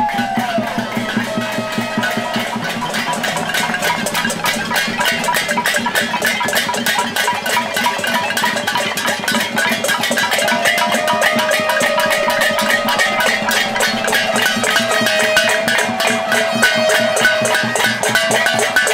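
Many metal pot lids and pans being beaten with spoons and other utensils, a dense, fast clatter of metal strikes, with a steady low hum beneath and a held tone now and then.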